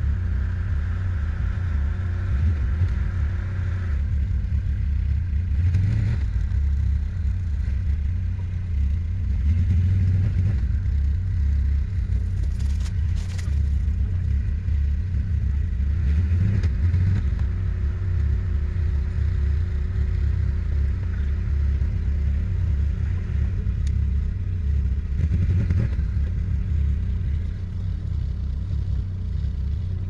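ATV engine running with a steady low rumble, with a few knocks and clatters over rough ground.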